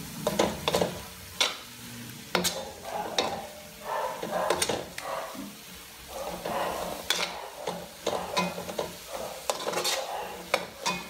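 Metal spatula stirring and scraping malunggay leaves in coconut milk around a frying pan, with irregular clacks against the pan over a sizzle, as the coconut milk is cooked down to draw out its oil.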